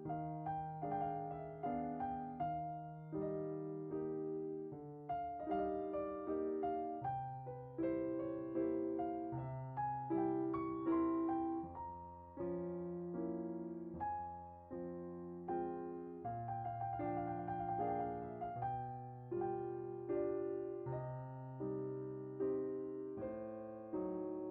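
Background piano music: a gentle, steady melody of struck notes over held bass notes.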